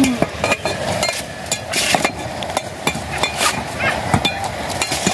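Irregular knocks and clicks of a stick stirring in a metal cooking pot over a wood fire, with the fire crackling.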